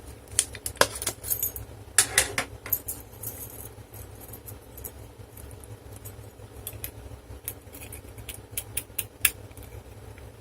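Scattered light clicks and small metallic clinks from handling a clear practice lock and its case, with a busier run of clicks about two seconds in and again near the end, over a steady low hum.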